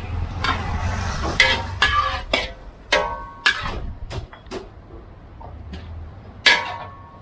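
Metal ladle scraping and clanking against a large aluminium wok during stir-frying: irregular sharp clinks with a brief metallic ring, over a low steady rumble that fades about five seconds in. A louder clang near the end as the ladle strikes the steel serving tray.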